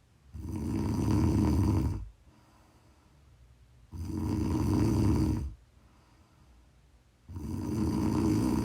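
A person snoring steadily: three long snores of about a second and a half each, coming every three and a half seconds or so, with quiet breathing in between.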